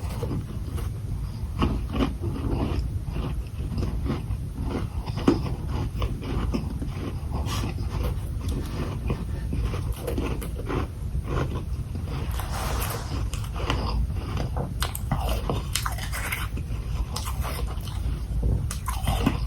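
A person biting into and chewing balls of packed humidifier freezer frost: a long run of irregular crunches.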